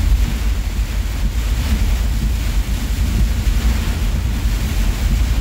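Heavy rain and high wind beating on a semi-truck's cab, heard from inside: a steady hiss of rain over a loud, gusting low rumble of wind and road noise.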